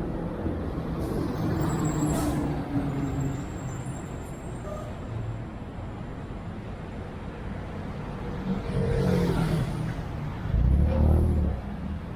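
Toyota Belta's 2NZ-FE four-cylinder running through a Kakimoto Regu 06&R exhaust, a low steady exhaust drone. It swells louder three times, the strongest near the end.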